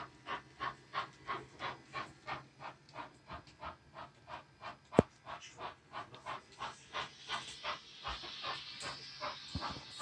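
HO scale Rivarossi 4-4-0 model steam locomotive's chuffing sound, an even beat of about three chuffs a second. A single sharp click comes about halfway, and a steam-like hiss swells over the chuffs near the end.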